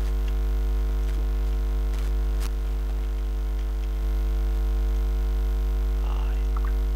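Steady electrical mains hum from a poor-quality microphone, a strong low buzz with a stack of higher overtones, loud relative to the speech around it. A faint click sounds about two and a half seconds in.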